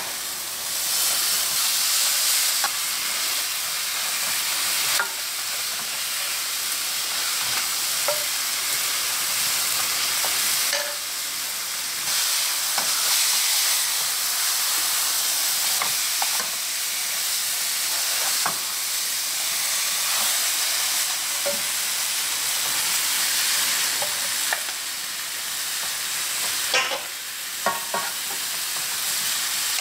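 Dried pollack and red chili-paste sauce sizzling steadily in a nonstick frying pan, with scattered light clicks and scrapes of a metal slotted spatula working the fish; a quick cluster of clicks near the end.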